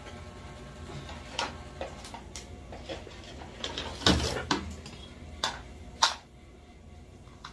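A series of clicks and knocks from small objects being handled, the loudest a heavier knock about four seconds in.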